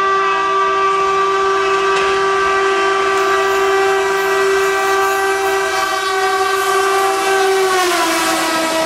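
WCAM-2P electric locomotive's air horn sounding continuously as the express approaches at speed. The horn's pitch drops near the end as the locomotive passes, and the rush of passing coaches follows.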